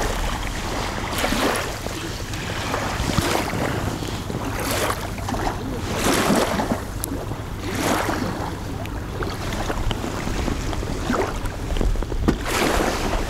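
Wind blowing across the microphone with a low rumble, and small waves lapping at the reservoir's edge, the rushing noise swelling and easing every second or two.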